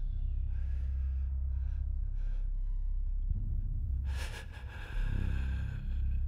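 Short breathy puffs over a steady deep low rumble, then a longer, brighter airy rush about four seconds in.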